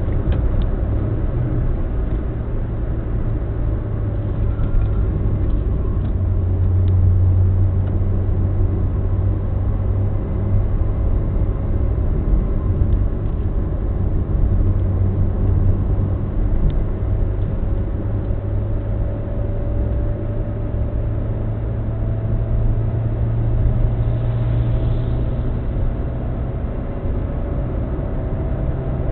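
Car driving at expressway speed, heard from inside the cabin: a steady low rumble of tyres and engine. In the second half a faint tone rises slowly in pitch as the car speeds up again.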